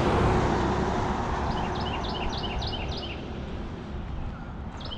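A songbird singing a quick run of repeated, falling chirps, once about a second and a half in and again near the end, over the rush of traffic on a nearby road fading away.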